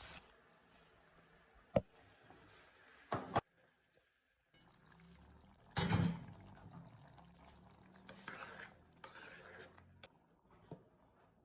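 Faint, scattered handling sounds with near silence between them: a sharp click about two seconds in, a short burst a second later, and a louder rush of noise about six seconds in, with a liquid, pouring or splashing character.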